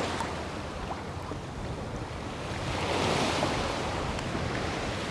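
Wind buffeting the microphone over shallow bay water lapping and sloshing, with a louder rush of noise about three seconds in.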